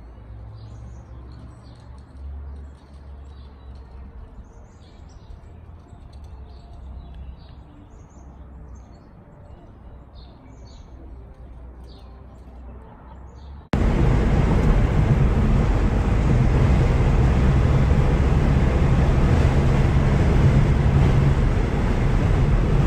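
Birds chirping over a faint low rumble. About two-thirds of the way through it cuts off abruptly into a much louder, steady rushing noise with a low hum running through it.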